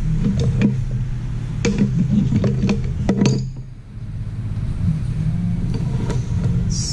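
Metal tools and parts clinking and knocking on a steel workbench as they are moved aside, a string of sharp knocks in the first three seconds or so. A steady low hum runs underneath.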